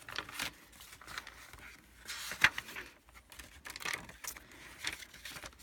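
Paper pages of a handmade journal being flipped by hand: a run of short paper rustles and flaps, the sharpest about two and a half seconds in.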